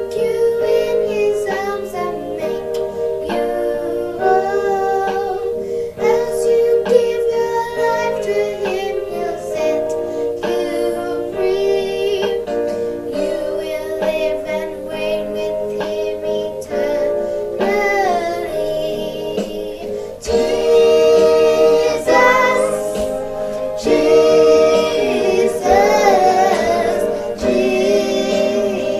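A young girl singing a song over an instrumental backing; it gets louder about twenty seconds in.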